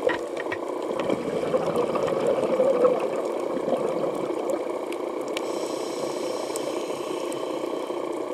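Underwater ambience picked up by a camera in its housing: a steady muffled water rush that swells briefly around the middle, with scattered sharp clicks.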